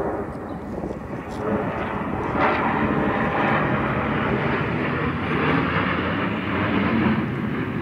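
A formation of six Sukhoi twin-engine fighter jets passing overhead: a steady jet-engine roar that swells about two and a half seconds in and then holds.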